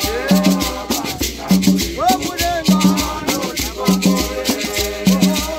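Men's choir singing to a hand-beaten skin drum and shaken hosho gourd rattles. The drum strikes steady pairs of beats about every second and a bit, under constant rattling.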